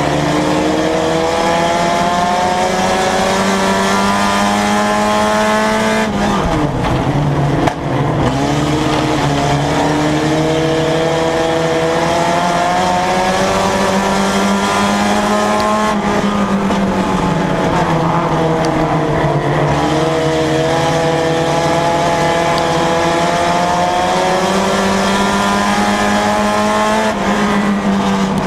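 Mini stock race car engine heard from inside the car under racing load. Its pitch climbs steadily along each straight and drops sharply three times as the driver lifts off for the turns.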